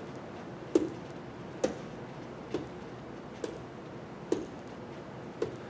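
Six sharp taps, evenly spaced just under a second apart, each a short click with a brief knock.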